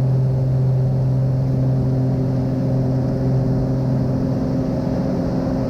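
A 1969 Cessna 182M's piston engine and propeller running steadily at full takeoff power, about 2,600 RPM and 27 inches of manifold pressure, heard from inside the cabin during the takeoff and start of the climb.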